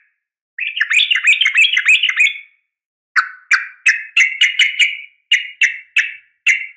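Sooty-headed bulbul (trucukan) calling, offered as a female calling to a male: a fast, run-together chatter of notes about half a second in, then after a short pause a string of about a dozen separate notes, roughly four a second.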